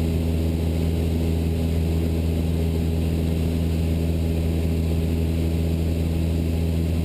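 Cessna 172 Skyhawk's four-cylinder piston engine and propeller droning steadily in level cruise, heard in the cabin. The pitch and level hold even throughout.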